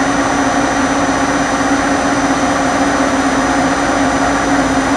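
Okuma & Howa Millac 4VA CNC machining center's spindle running steadily at 2000 RPM: an even hum with one constant tone, unchanging throughout.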